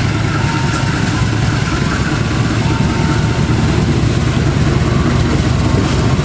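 Diesel-electric locomotive approaching with a train of passenger coaches, its engine running with a loud, steady low drone.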